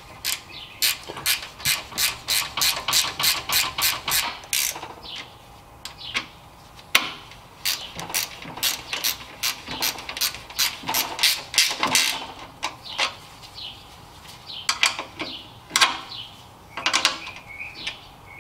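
Hand socket ratchet clicking as it tightens the condenser mounting bolts, in quick runs of about four clicks a second. There are two long runs and then a few short bursts near the end.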